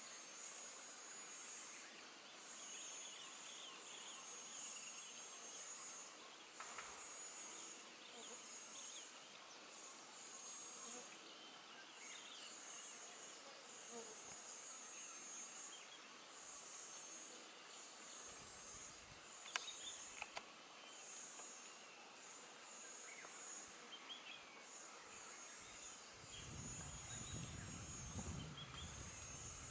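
Insect chorus of the rainforest: a high-pitched buzzing trill that pulses in repeated bursts about a second long, with faint scattered chirps. A low rumbling noise comes in near the end.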